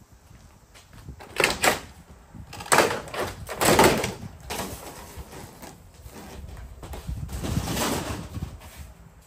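Siding being torn off a wall and handled: clattering and scraping bursts about a second and a half in, a loud run of them around three to four seconds in, and a longer scrape near eight seconds.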